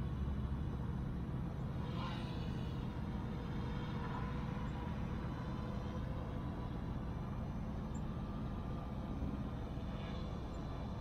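Autel EVO II quadcopter's propellers humming faintly and steadily as it hovers and drifts low, over a steady low rumble. A brief higher sound comes about two seconds in and again near the end.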